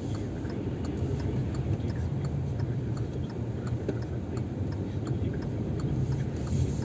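Steady low car cabin rumble of engine and tyres while driving, with the turn-signal indicator ticking evenly a few times a second during the turn.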